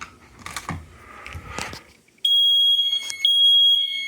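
A few light knocks and clicks. About two seconds in, the system's fire alarm mini horns start sounding a loud, steady, high electronic tone with short breaks: the alarm set off by testing a 2424 smoke detector.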